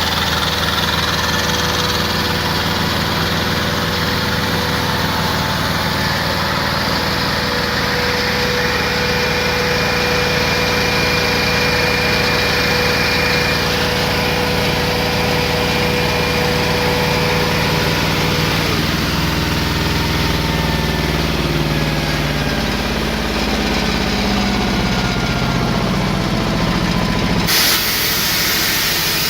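Bauer 20 cfm high-pressure air compressor running steadily and loudly, with an even mechanical drone. About two-thirds of the way in, a steady tone stops and the lower tones slide lower. Near the end the sound changes suddenly and a hiss is added.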